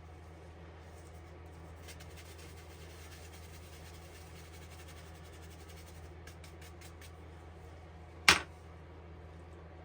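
A steady low hum with faint scratching, and a single sharp knock about eight seconds in.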